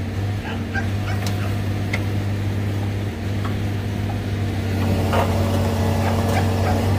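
Tracked excavator's diesel engine running steadily close by, getting a little louder about five seconds in, with a few short sharp clicks over it.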